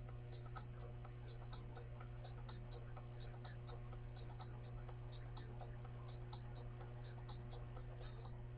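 Faint steady low electrical hum with light, regular ticking, about two to three ticks a second, under soft scattered rustles of hands working through long hair.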